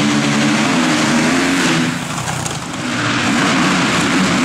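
Motocross bike engine revving hard under acceleration, easing off the throttle for about a second around two seconds in, then picking up again.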